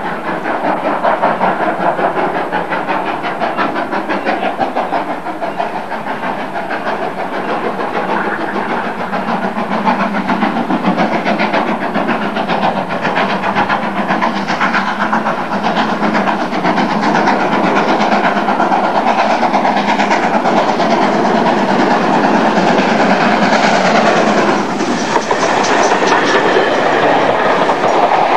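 Great Western steam locomotive approaching and passing with its train of coaches: steam exhaust and wheels running on the rails, a dense steady noise that grows louder from about halfway as the train draws level.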